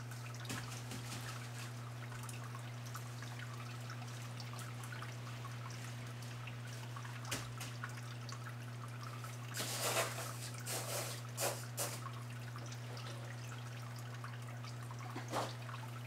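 Water dripping and trickling over a steady low hum, with a handful of louder taps and rustles between about nine and a half and twelve seconds in and once more near the end.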